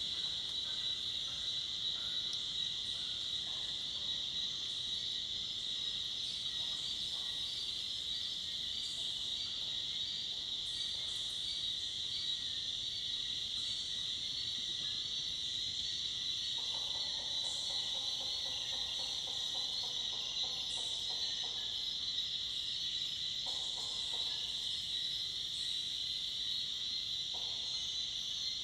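Steady, high-pitched chorus of crickets and cicadas in tropical forest. About halfway through, a lower, rapidly pulsed animal call runs for about four seconds, and two shorter ones come later.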